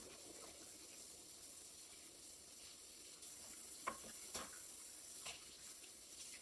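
Food sizzling as it fries, a steady faint hiss, with a few light clicks around the middle.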